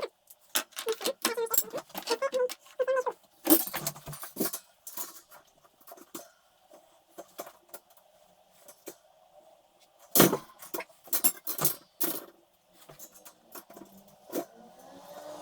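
Metal parts and hand tools being handled: an irregular run of clinks, knocks and jangles, a few of them ringing briefly.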